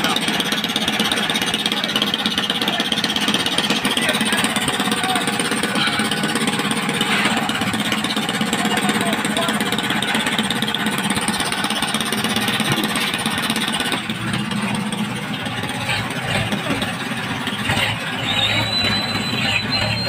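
Fishing boat's engine running steadily, a dense continuous mechanical noise that eases slightly about two-thirds of the way through; near the end a thin, high steady tone sounds over it.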